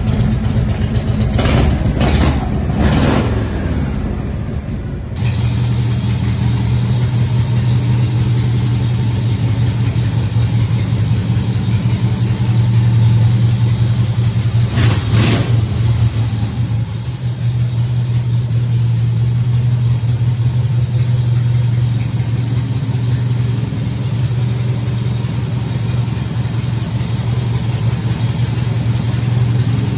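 Harley-Davidson V-twin engines of custom choppers running. The first is revved in three quick throttle blips. After a cut about five seconds in, a second one idles steadily, with a single throttle blip about halfway through.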